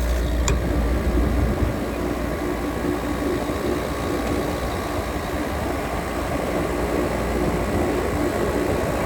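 Air conditioner's outdoor unit running steadily just after starting up: a low compressor hum under the even rush of the condenser fan, with one short click about half a second in.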